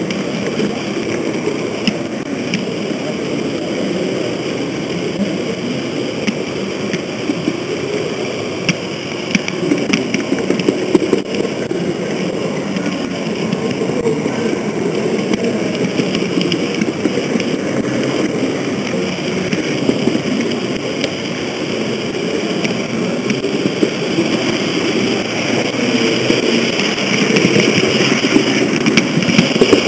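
H0-scale model train running along its track, heard up close from on board: a steady rolling rumble of the wheels and drive, with a few short clicks along the way.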